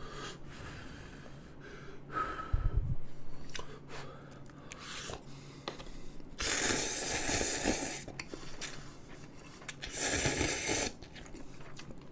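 Instant ramen noodles slurped from chopsticks: two long, airy slurps, the first about six seconds in and lasting over a second, the second shorter, about ten seconds in.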